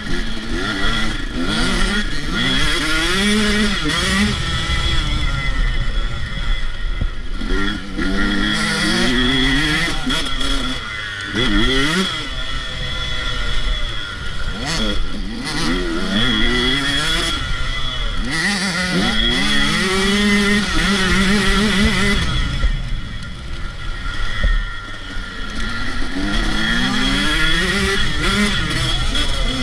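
Motocross dirt bike engine heard from on board, revving up under acceleration and dropping back again every few seconds, the pitch climbing and falling repeatedly through the laps.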